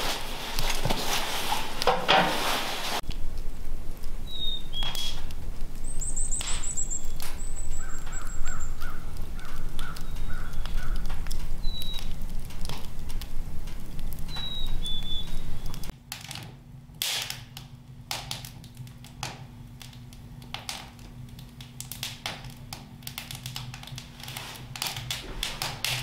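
A wood stove's kindling fire crackling, then birds calling: a few short high chirps and a run of about seven evenly spaced calls. About two-thirds of the way in, the stove fire is crackling again with sharp pops over a low steady hum.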